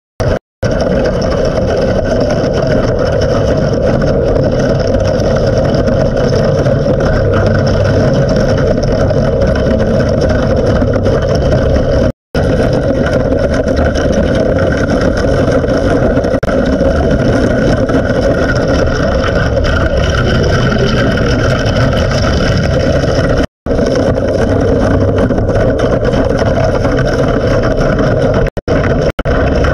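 Diver-operated hull-cleaning brush machine running underwater, its spinning brushes scrubbing marine growth off a ship's hull: a loud, steady mechanical drone. The sound cuts out for an instant a few times, twice in quick succession near the end.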